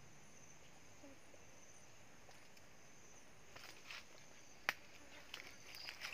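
Faint, steady high-pitched insect buzz from the forest, crickets or cicadas. From about three and a half seconds in come dry crackles and snaps of footsteps on leaf litter and twigs, one sharp snap standing out a little past the middle.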